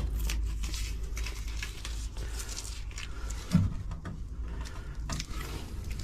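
Scattered light knocks and handling noises, with one louder dull thump about three and a half seconds in.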